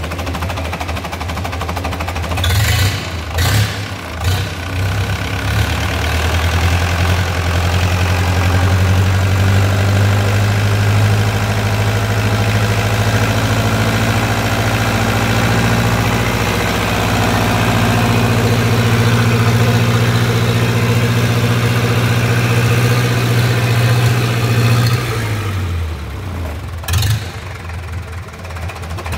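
Westerbeke 40 four-cylinder marine diesel running on a test stand: it picks up speed a few seconds in, runs steadily, then slows down about 25 seconds in. A few sharp knocks sound near the start and near the end.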